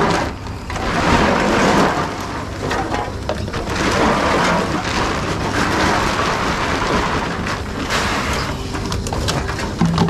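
Rustling and clattering of empty plastic bottles and aluminium drink cans being handled in crates and a plastic bag and pushed into reverse vending machines: a continuous rustle with many small knocks and clicks.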